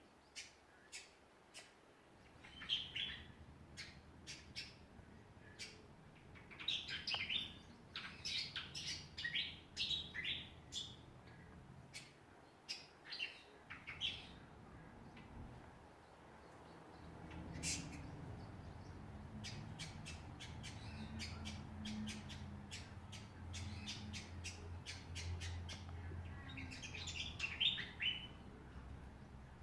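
Backyard birds calling: many short, sharp chirps and squawks, some in quick runs, with a steady low hum coming in a little past halfway.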